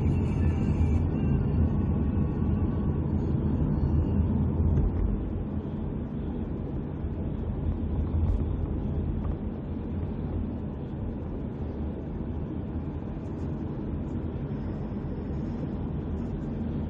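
Steady low rumble of a car on the move, heard from inside the cabin: road and engine noise, a little louder for the first five seconds, then settling lower.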